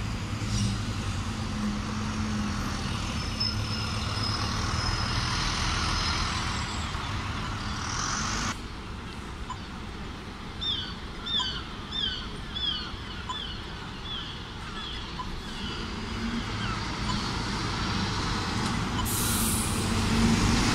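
Diesel engines of double-decker city buses running in street traffic, a steady low hum that grows louder near the end as a bus passes close by. In the middle comes a run of about ten short chirps, each falling in pitch, roughly two a second.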